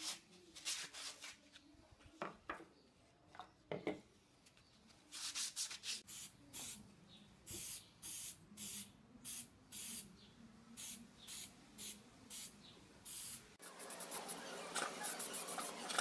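Hand-sanding strokes on the edge of a wooden disc, then an aerosol spray-paint can hissing in about a dozen short bursts. Background music comes in near the end.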